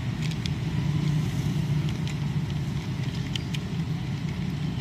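A steady low rumble throughout, with a few faint clicks from the plastic transforming toy car being pressed into shape.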